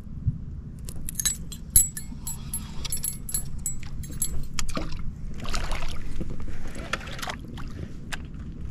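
Fishing gear in a boat: a run of sharp metallic clicks and rattles, thickest in the first three seconds, and a short rushing noise about five and a half seconds in. A steady low hum sits under it all.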